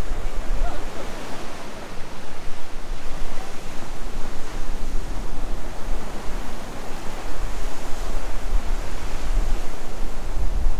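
Steady rush of ocean surf, with wind rumbling unevenly on the microphone.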